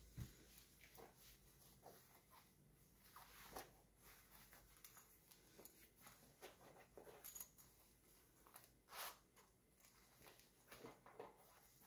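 Faint rustling and scraping of a cotton fabric crossbody purse being handled as its strap is put over the shoulder and the bag is opened and closed, in short scattered bursts with the strongest about nine seconds in.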